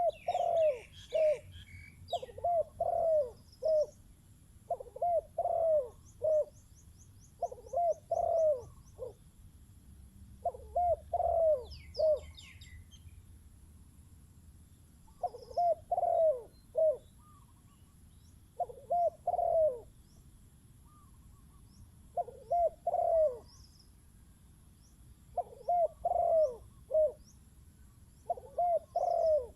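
Spotted doves cooing: short phrases of three or four low, falling coos, repeated about every two to three seconds. Faint high chirps and a brief trill from small birds sound behind them.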